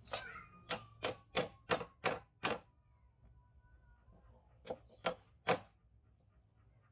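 Small hammer tapping a brass pin rod down into the hole of a wooden knife handle. First comes a quick run of seven sharp metallic taps, about three a second, then three more after a pause, with a faint ringing tone lingering between them.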